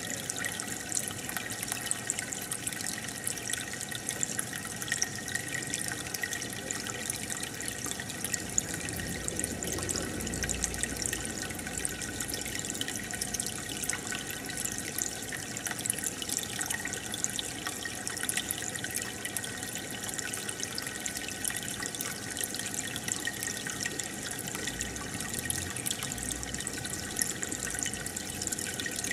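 Aquarium filter outflow and air bubbles, a steady trickling and bubbling of water with many tiny pops.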